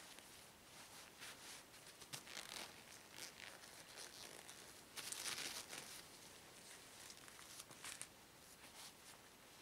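Long green rubber gloves being pulled on over leather gloves: faint rubbing and rustling of rubber against leather and suit cloth, in a string of short scrapes with the longest and loudest about five seconds in.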